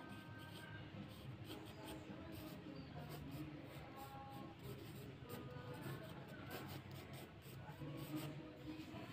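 Graphite pencil scratching across drawing paper in short, irregular sketching strokes, faint.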